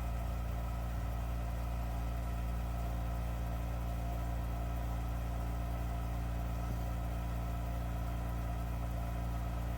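Electric motor of a 3D-printed flat lap (lapidary grinding machine) running with a steady, even hum.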